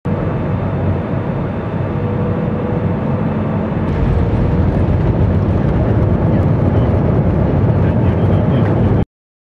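Jet airliner cabin noise by the wing: steady engine and air noise in flight, then from about four seconds in a louder rumble as the plane rolls along the runway after landing. It cuts off abruptly near the end.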